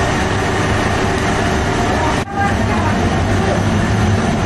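Bakery machinery running steadily: the conveyor bread oven and a large exhaust fan give a constant low hum under a loud rushing noise. The noise cuts out for a moment a little over two seconds in.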